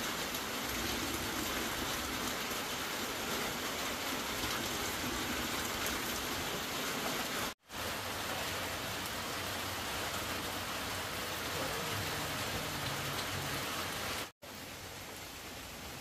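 Steady hiss of water, like rain, cut off twice by sudden brief gaps of silence, about halfway through and again near the end; after the second gap it is a little quieter.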